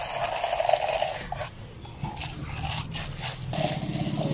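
Ice cubes tipped from a plastic container into plastic cups, clattering with separate clicks. A low engine-like rumble builds under it from about halfway and grows louder near the end.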